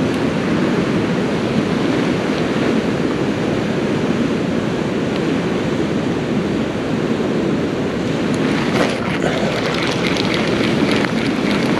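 Steady rushing of flowing creek water, with wind buffeting the microphone. From about eight seconds in, light crackling and rustling comes in over it.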